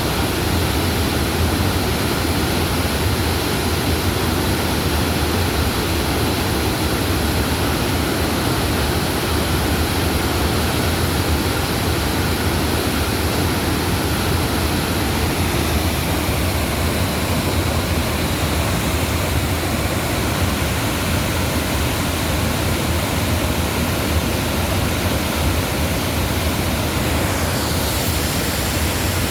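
Waterfall roaring steadily: loud, even rushing of falling water with no breaks.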